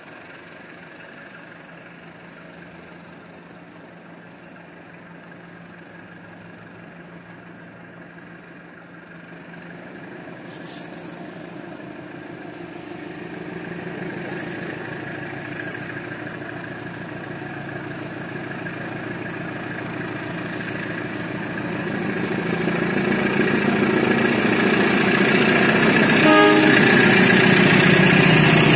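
Diesel locomotive hauling a parcel train, approaching and growing steadily louder until the cars roll past with a rushing wheel-and-rail noise. A brief horn toot sounds near the end.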